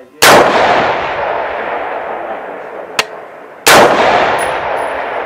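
Two shots from a 6.5 Creedmoor rifle, about three and a half seconds apart, each with a long echoing tail. A short sharp click comes just before the second shot.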